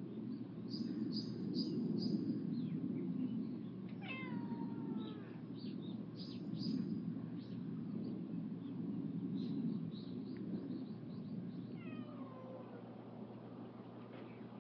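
A cat meowing twice, each call long and sliding down in pitch, about four seconds in and again near the end. Short high chirps come and go throughout, over a steady low rumble.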